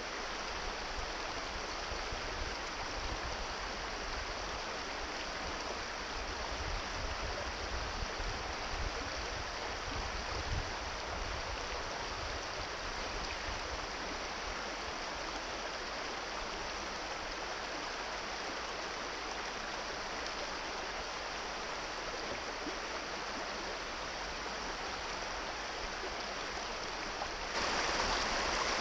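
Small rocky brook rushing over stones and riffles, a steady rush of water. Near the end it gets suddenly louder and brighter.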